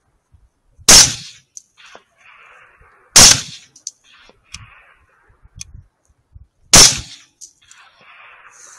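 Three rifle shots, each a single sharp crack: the first about a second in, the second a little over two seconds later, the third about three and a half seconds after that.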